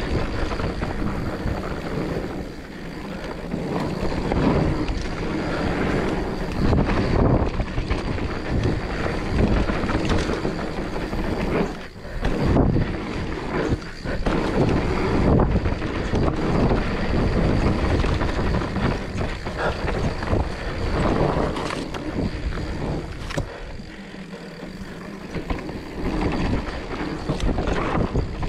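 Wind buffeting the camera microphone and tyres rolling over a dirt trail as a mountain bike descends at speed, with knocks and rattles from the bike over bumps. The rush drops briefly about twelve seconds in and eases for a few seconds near the end.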